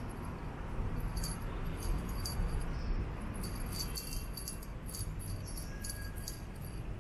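Small bell on a wand cat toy jingling in short shaken bouts as the toy is twitched along the ground, over a low background rumble.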